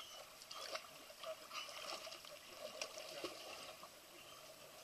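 Swimming-pool water lapping and trickling, with scattered light taps and small splashes.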